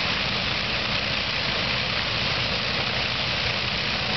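Avro Lancaster bomber's Rolls-Royce Merlin V12 piston engines running steadily at low power during a ground engine start, a deep, even rumble with the hiss of the propellers.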